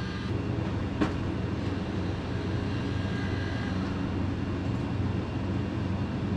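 Pellet grill's combustion fan running with a steady hum during start-up, with a single sharp click about a second in.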